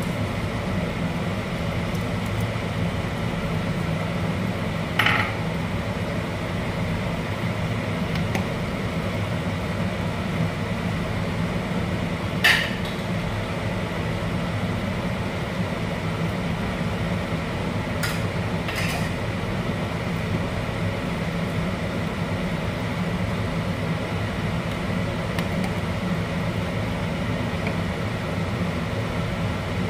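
Steady low kitchen hum with a few sharp clinks of a metal utensil against a pan of soup on the hob: two single clinks about five and twelve seconds in, and two close together about eighteen seconds in.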